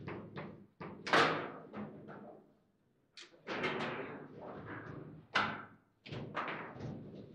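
Foosball table in play: sharp knocks and clacks of the ball struck by the plastic men on the metal rods and bouncing off the table walls, in irregular runs with short pauses, the loudest bangs about a second in and about five seconds in.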